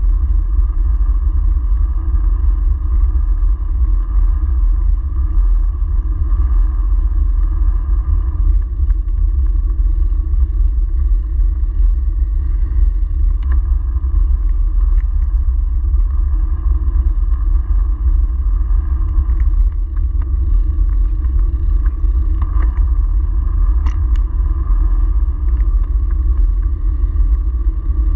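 Steady wind rumble on the microphone of a bike-mounted camera while riding a bicycle along a paved road, with tyre and road noise underneath and a few light clicks.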